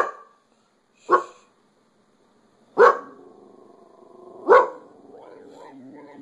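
A dog barks four times, sharp and loud, about a second and a half apart. These are territorial alarm barks at a TV screen that she treats as a threat.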